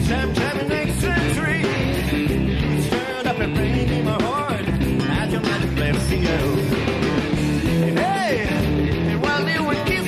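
Electric guitars playing a blues-rock instrumental passage with bent, sliding lead notes over a full band backing, heard from a cassette recording of an FM radio broadcast.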